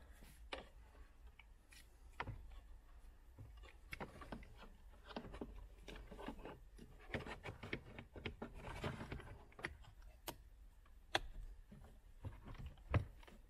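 Faint rustling, scraping and scattered small plastic clicks as a wiring connector (plug C) is worked by hand back into a car's body control module under the dashboard, with one louder click near the end.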